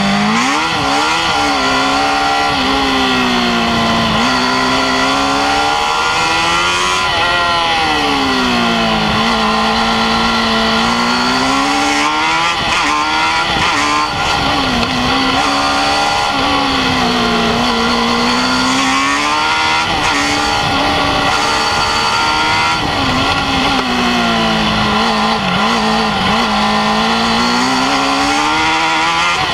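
Formula Student race car's engine heard from the car's own onboard camera while lapping. It revs up along the straights and drops in pitch when slowing for corners, rising and falling several times.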